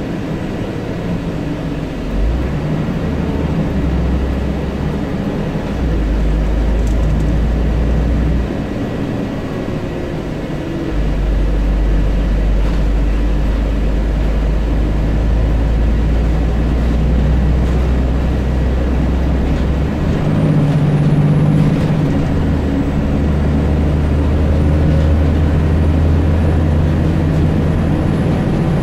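Scania N94UD double-decker bus on the move, heard from inside on the upper deck. The diesel engine's deep drone swells for several seconds at a time and falls back between stretches as the bus pulls away, runs on and eases off, over steady road noise.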